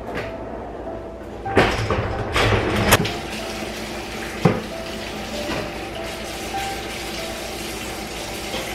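Dishes clattering at a kitchen sink for a second or two, a single sharp knock, then the kitchen faucet running steadily as dishes are rinsed under it.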